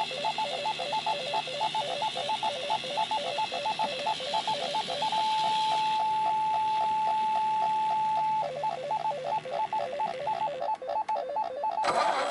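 An electronic ringing tone warbling rapidly between two pitches, like a telephone ring. Midway it holds one steady pitch, broken by short regular gaps, for about three seconds, then warbles again. Music starts near the end.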